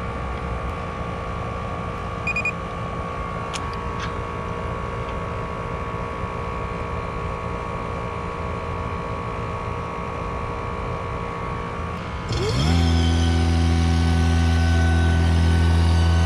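Steady mechanical hum with a short electronic beep about two seconds in from the digital micron gauge being connected. About twelve seconds in, an electric motor spins up with a rising whine and settles into a loud, steady hum: the vacuum pump starting to pull a vacuum on the refrigeration system.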